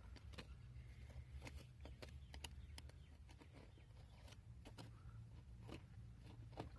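Faint, scattered clicks and scrapes over a low steady rumble: digging by hand through dump soil and broken glass to free a buried bottle.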